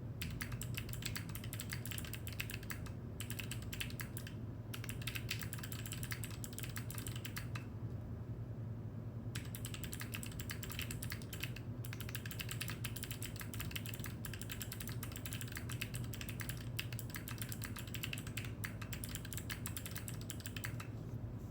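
Typing on a Geon Frog Mini mechanical keyboard with Gateron Melodic linear switches and DCS-profile Blue Moon keycaps: quick keystrokes in dense runs with short pauses, the longest, over a second and a half, about eight seconds in. A low steady hum sits underneath.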